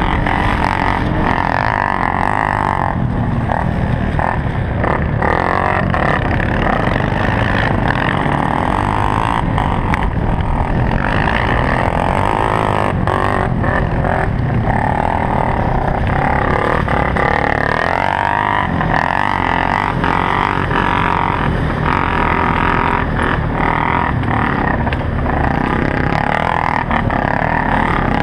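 Polaris Sportsman 570 utility quad's single-cylinder engine heard from on board under racing throttle, its pitch rising and falling as the rider works the throttle. Frequent short knocks run through it.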